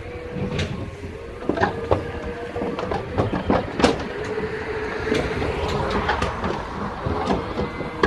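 Irregular metallic clanks and knocks from a livestock trailer and pen gates as calves are moved, over a steady mechanical hum.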